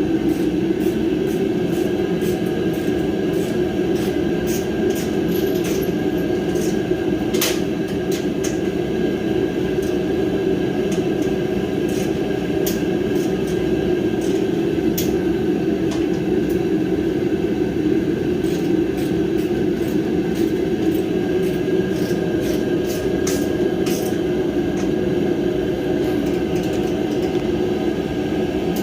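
A steady mechanical hum from a running machine such as a shop fan or compressor, with irregular light clicks and taps of a wrench or ratchet working the bolts on a steel welding cart.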